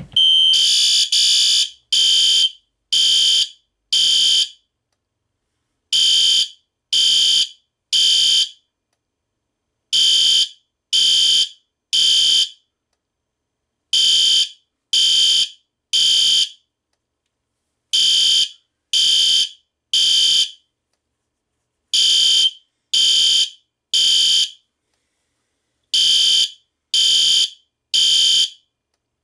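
System Sensor SpectrAlert Classic and SpectrAlert Advance fire alarm horns sounding in unison, held in sync by an MDL sync module. They give a loud, high, harsh tone in groups of three short blasts with a longer pause between groups, the temporal-three evacuation pattern, repeating steadily.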